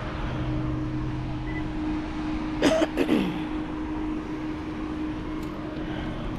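Outdoor street ambience: a steady mechanical hum over a low traffic rumble. A brief vocal sound, like a cough or grunt, comes about three seconds in.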